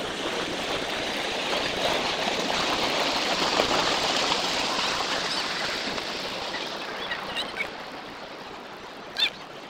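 Steady rushing hiss of water flowing along a concrete irrigation channel, fading gradually after about five seconds, with a couple of brief high-pitched calls near the end.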